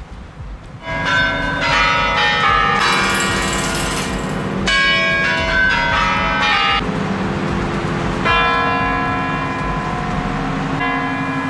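The Kremlin's Spasskaya Tower chimes: large clock bells ringing a melody in several phrases, starting about a second in, ahead of the hour being struck.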